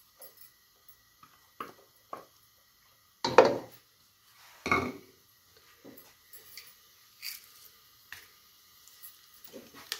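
Wooden spatula knocking and scraping against a non-stick pot while stirring melting ghee: a few scattered strokes, the two loudest a little past three seconds and near five seconds in.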